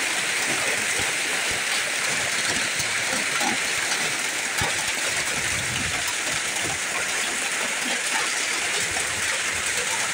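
Heavy rain with hail pelting down: a steady, dense hiss of downpour.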